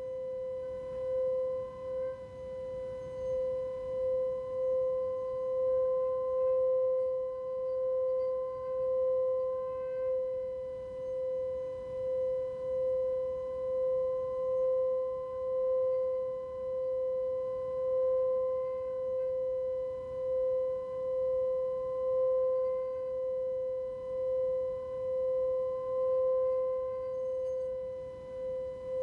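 Tibetan singing bowl sounding one steady, sustained pure tone with a faint overtone above it, its loudness gently swelling and fading every second or two.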